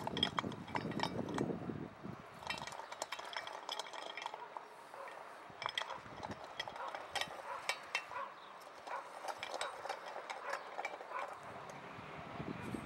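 Homemade nail-spiked lawn roller aerator rolling over bare soil: an irregular run of sharp clicks and clinks from the spikes and the iron frame, with a heavier crunching rumble in the first couple of seconds.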